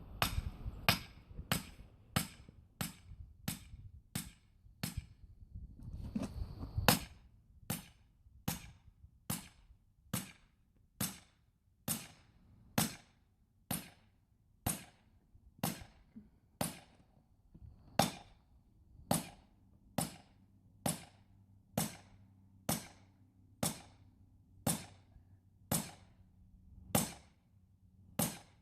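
Sledgehammer pounding a felling wedge into the saw cut of a tree, about one sharp knock a second, all the way through. The wedge is being driven to open up the cut's gap.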